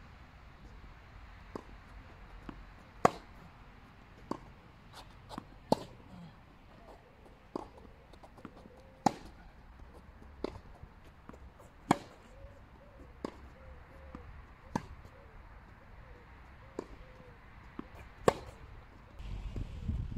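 Tennis balls struck by racquets in a baseline rally: sharp pops about every second and a half. The loudest come about every three seconds from the nearer player's racquet, with fainter hits and ball bounces on the hard court in between. A low rumbling noise starts about a second before the end.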